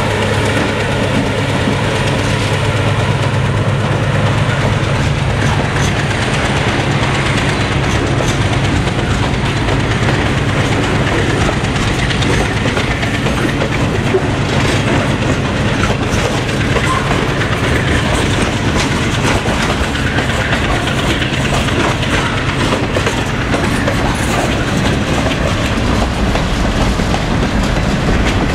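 A short-line freight train passing close by: the diesel locomotives, a GE B23-7 and an EMD GP9, run past with an engine hum in the first few seconds, which fades as the freight cars follow. Then covered hopper cars roll by with the steady rumble and clickety-clack of their wheels on the rails.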